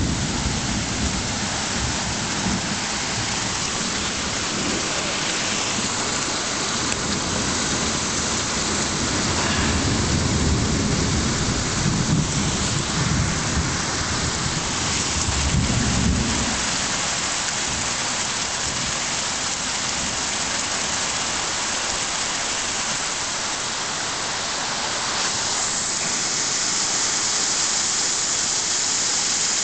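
Torrential rain pouring down in a steady, dense hiss. Low rumbling swells and fades under it through the first half, then dies away a little past the middle.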